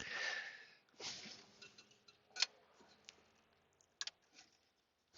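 Faint scraping and a few sharp clicks of a dashboard bracket and plastic trim being worked loose by hand, with the loudest click about two and a half seconds in.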